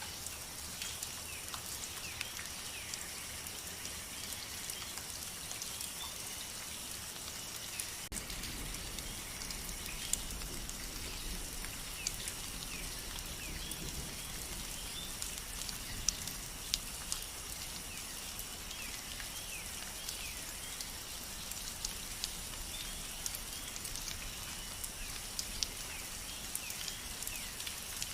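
Steady rain, with individual drops landing on a surface as scattered sharp clicks. Faint, repeated short chirps sound in the background.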